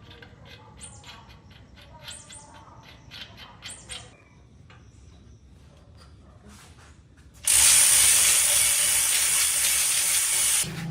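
Ratchet wrench clicking in quick runs with a few sharper strokes. After a pause, a loud steady hiss lasting about three seconds cuts off suddenly.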